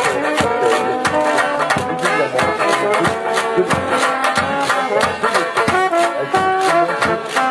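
Small live band playing a tune with a steady beat: trombone and other brass over a banjo.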